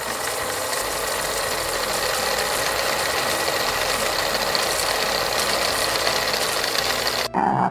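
Steady snare-drum roll sound effect playing under a quiz question, cutting off abruptly just over seven seconds in, followed by a brief tone.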